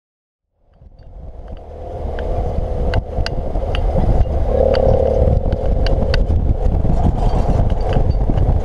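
Motorcycle engine running with wind rumble, heard from a camera mounted on the moving bike, with scattered sharp clicks. It fades in from silence over the first two seconds.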